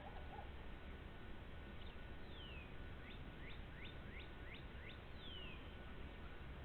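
A wild bird calling faintly near its nest: a falling whistle, then a quick run of about six short rising notes, then another falling whistle, over steady low background noise.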